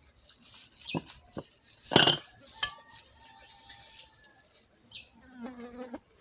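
Cooking pots and utensils knocking a few times, the loudest knock about two seconds in, over a steady high hiss. A short pitched call sounds near the end.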